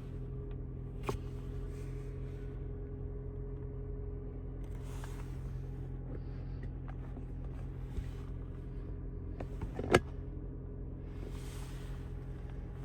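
Cabin sound of a 2025 Toyota Prius Limited on the move: its hybrid powertrain giving a steady low hum over road noise. A light click comes about a second in and a sharper, louder click about ten seconds in.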